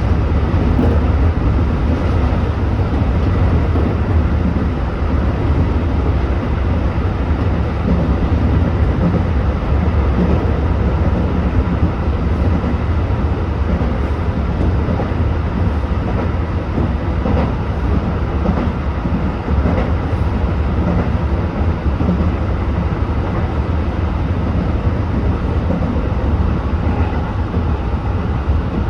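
Tobu 8000-series electric train running at speed between stations, heard from the front of the car: a steady low rumble of motors and wheels on the rails, with a few faint clicks along the way.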